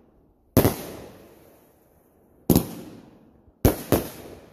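Aerial fireworks bursting overhead: four sharp bangs, each trailing off in a fading echo, the last two coming close together near the end.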